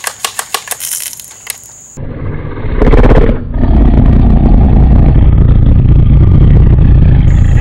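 A quick run of about eight sharp spurts as the toy water gun fires, then a loud, heavy, steady rumble that holds for about four seconds.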